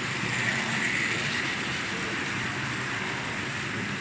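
Model coal hopper wagons rolling past on model railway track, a steady whirring rumble of small wheels on rails that is a little louder in the first second or so.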